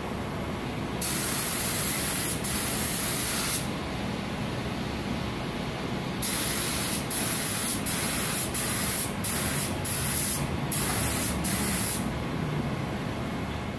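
Compressed-air paint spray gun hissing each time its trigger is pulled while spraying a car fender. A burst of about two and a half seconds starts about a second in, then after a pause comes a run of short passes of about a second each, with brief breaks between them.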